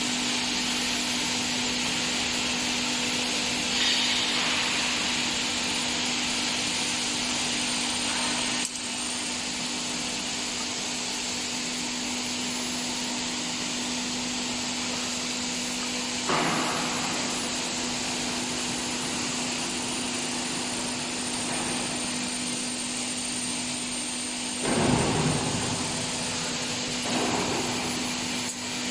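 Induction heating furnace for round rods running: a steady electrical hum with a thin high-pitched whine that drifts slightly in pitch, over a constant machine noise. A few brief, louder noises break in about 4, 16 and 25 seconds in.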